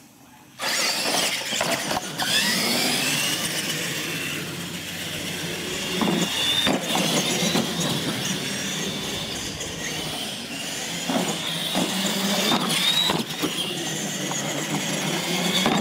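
Electric R/C monster trucks racing on a concrete floor: motors and gears whine loudly, rising in pitch as they speed up from a start about half a second in, with scattered knocks and clatters.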